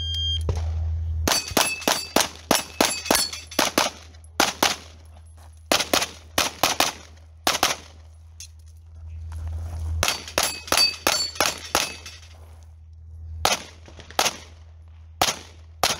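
Open-division competition pistol fired in rapid strings of shots, with pauses of a second or two between strings as the shooter moves, and several hits on steel targets ringing out. A short high beep sounds just at the start, typical of a shot timer.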